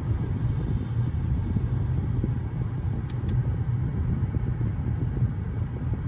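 Steady low rumble, even throughout, with two brief faint clicks about three seconds in.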